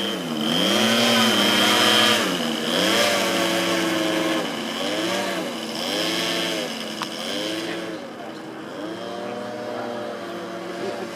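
Engines of a radio-controlled scale Cessna 337 Skymaster in flight, a steady buzzing drone whose pitch dips and recovers several times as the plane flies past and maneuvers.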